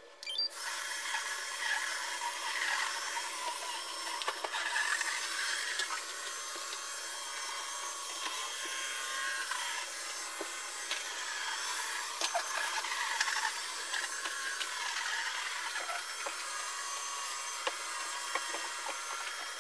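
Roomba 866 robot vacuum cleaning the floor: a steady brushing, whirring hiss that wavers as it moves, with scattered small clicks and knocks.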